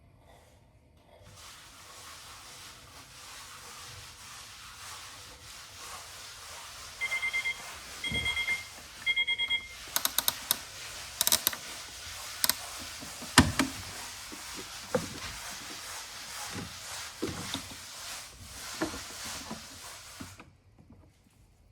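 Miele Novotronic W377 washing machine beeping three times, each beep a quick warbling tone about a second apart, over a steady low hum. This is followed by a series of sharp clicks and knocks.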